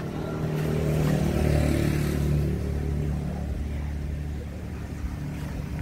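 Heavy diesel truck engine idling: a steady low hum that swells a little in the first couple of seconds and eases off toward the end.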